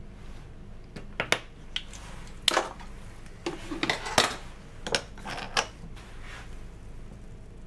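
About a dozen sharp, irregular plastic clicks and taps as small snap-cap microcentrifuge tubes and a pipette are handled in and around a plastic tube rack.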